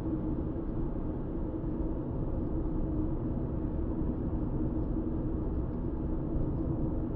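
Steady engine and tyre noise inside a car's cabin while it drives along an open road: an even, low drone with no breaks.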